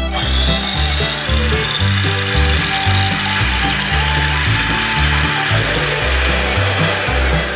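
A steady mechanical rattling noise that starts abruptly and stops at the end, over background music with a repeating bass line.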